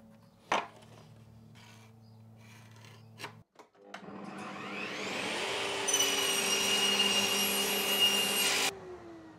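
Table saw spinning up with a rising whine, then crosscutting a solid pine floorboard on a crosscut sled. The cutting noise drops off sharply near the end, leaving a falling tone as the blade runs down. A single sharp click sounds about half a second in.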